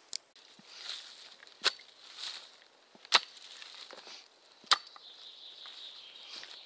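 Shovel chopping into packed clay soil: four sharp strikes about a second and a half apart, with soil scraping and crumbling between them.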